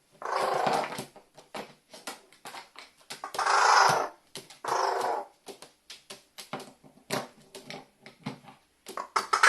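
Carrion crow sneezing with water in its nose: four harsh, noisy sneezes, three in the first half and one at the end, with light clicks and taps between them.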